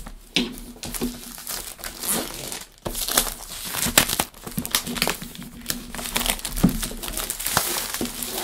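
Clear plastic wrap crinkling and crackling as it is torn and pulled off a laptop box, with short gaps between pulls.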